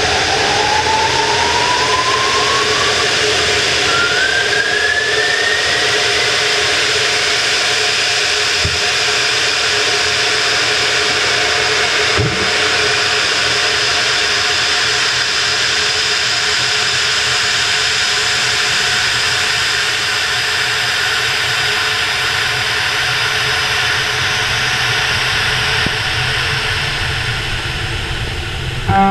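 Steady, loud rushing roar of a sounding rocket in powered ascent, heard through its onboard camera, with a thin whistle that rises in pitch over the first several seconds as the rocket spins up for stabilisation. A short knock sounds about twelve seconds in.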